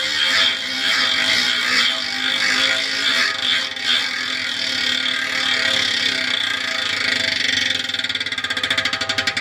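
Tactic Racing rear hub's freehub ratcheting in a continuous high buzz as the Princeton CarbonWorks Wake 6560 wheel spins freely. Near the end the buzz slows into separate clicks as the wheel winds down.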